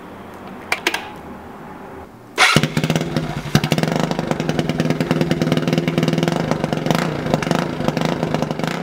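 Two clicks, then a GY6-swapped Honda Ruckus scooter's single-cylinder four-stroke engine starts about two and a half seconds in and runs with a fast, pulsing exhaust note through a custom triple-loop exhaust.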